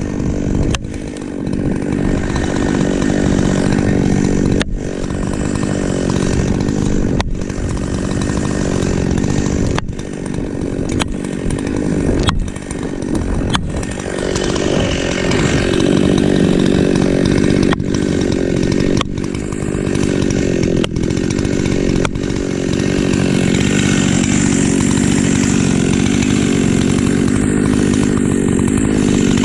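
Two-stroke chainsaw with a ported muffler running loud and steady, under load as it cuts through ash wood. The sound cuts out for an instant several times.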